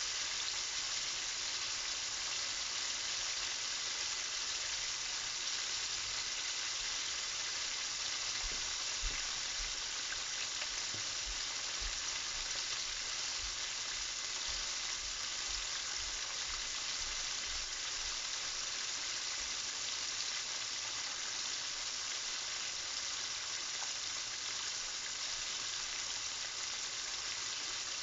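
Chicken pieces deep-frying in a pan of hot oil, a steady, even sizzling.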